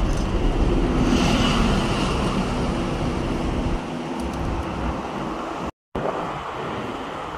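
Road traffic on a multi-lane city avenue: a steady hiss of passing vehicles, with an engine hum loudest in the first few seconds. Near the end the sound cuts out for an instant, then carries on as quieter traffic.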